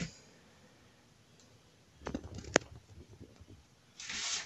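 A few light clicks and knocks about halfway through, one sharper than the rest, then a short soft rustle near the end: items being handled and moved.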